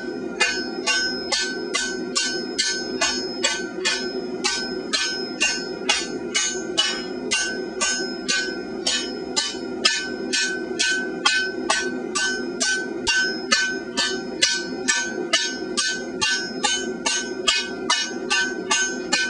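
Blacksmith's hand hammer striking hot mild steel on an anvil in a steady, even rhythm of about three blows a second, the anvil ringing between blows. These are diagonal finishing strokes that smooth out ripples and taper the edges of the flattened bar.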